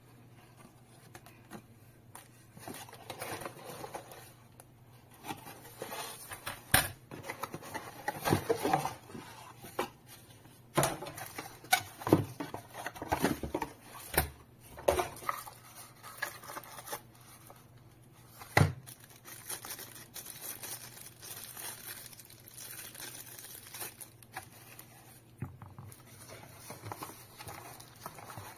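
Packaging being handled: plastic bags and tissue paper rustling and crinkling while a cardboard box and insert tray are moved about, with irregular sharp knocks and taps.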